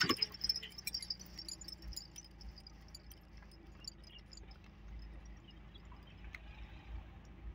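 Quiet outdoor ambience: a faint high insect trill that fades out within the first few seconds, over a low uneven rumble and scattered small clicks.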